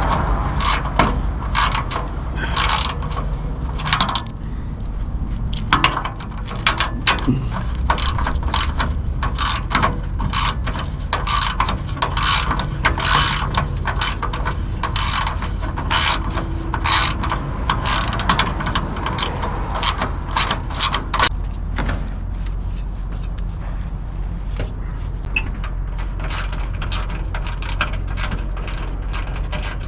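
Hand ratchet wrench clicking in quick runs as the bolts holding the front skid plate are backed out. The clicking stops about 21 seconds in, leaving only a steady low hum.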